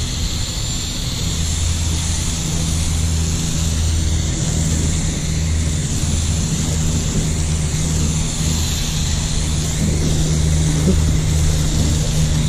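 Garden-hose foam gun spraying car shampoo foam onto a car, a steady hiss, over a steady low hum that is the loudest part of the sound.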